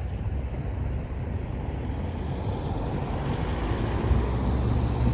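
Wind rumbling on the microphone, with a motor vehicle's engine hum coming in about three seconds in and growing louder toward the end.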